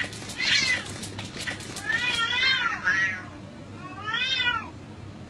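Cat meowing: three or four drawn-out calls that rise and fall in pitch, the last one near the end. Rapid sharp taps sound under the first call.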